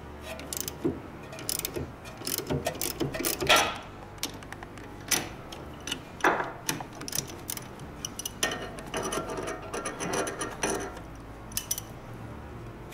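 Hand socket ratchet clicking in uneven runs of quick clicks, with odd louder knocks, as the 14 mm strut-to-fork clamp bolt is worked.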